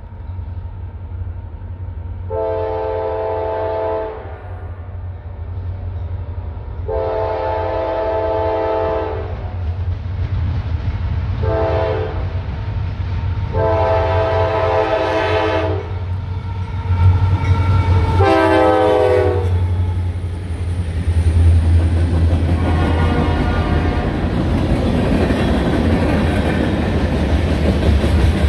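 Diesel freight locomotive's air horn sounding the grade-crossing signal: two long blasts, a short one and a long one, then a brief final blast that drops in pitch as the locomotive passes. The low rumble of the diesel engines and rolling freight cars builds under it and grows through the rest.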